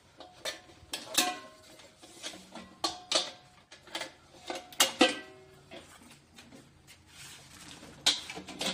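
Cedar Trail 22-inch folding fire pit's metal bowl and folding legs clanking as the legs are folded down for storage: a string of sharp metallic clanks, each ringing briefly, the loudest about five seconds in and near the end.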